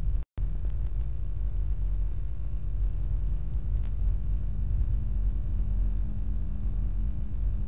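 A low, steady rumble, cut off for an instant just after the start. A faint low hum joins it about three seconds in.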